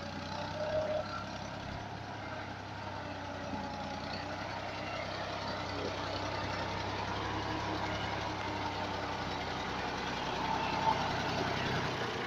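Fiat 480 tractor's three-cylinder diesel engine running steadily, growing slowly louder.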